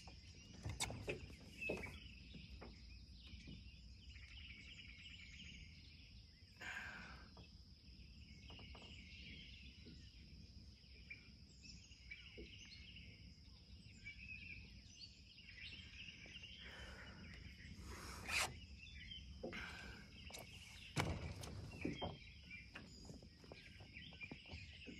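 Quiet outdoor ambience on a lake: birds calling faintly over a steady, faint high-pitched tone. Scattered small clicks and knocks of handling come from a small boat, with a sharper knock past the middle and a low thump soon after.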